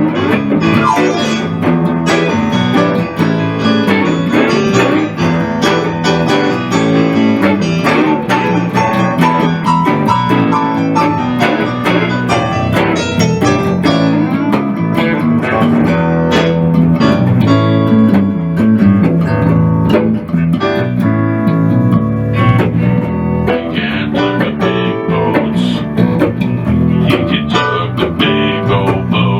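Instrumental music led by plucked guitar, with a bass line under it.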